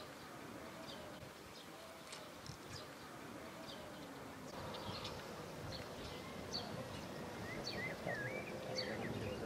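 Small birds chirping over and over, short high notes, with a brief warbling call near the end. Under it is a low outdoor background noise that gets a little louder about halfway through.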